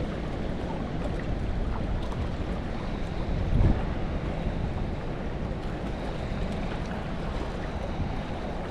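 Steady rushing of flowing river water mixed with wind on the microphone, with a brief louder low gust or bump about three and a half seconds in.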